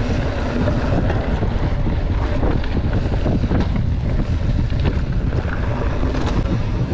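Wind buffeting the microphone during a mountain-bike ride over rough trail, with a steady low rumble and scattered knocks and rattles from the ground.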